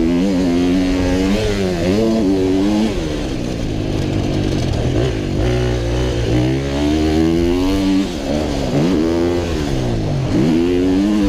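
125cc two-stroke motocross bike at full race pace, its engine revving up and dropping off again and again as the rider works the throttle and gears through the track's sections, heard from the rider's helmet.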